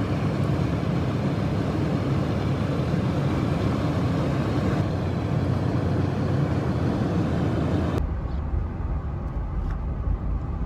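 Road and tyre noise inside a Jeep Wrangler Rubicon 4xe at highway speed: a steady rushing that abruptly turns to a deeper rumble with less hiss about eight seconds in.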